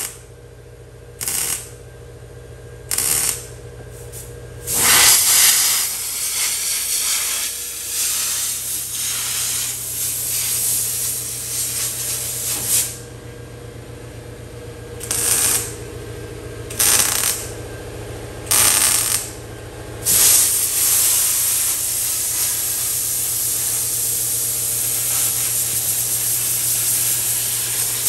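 A MIG welder fires short stitch welds along a sheet-steel butt seam, several bursts of a second or less. Two long stretches of hissing come from a compressed-air blow gun cooling the seam so the panel does not warp. A steady low hum runs underneath.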